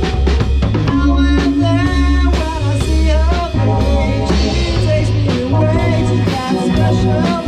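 A live rock band plays: drum kit keeping a steady beat under electric guitars, with a vocalist singing through a microphone from about a second in.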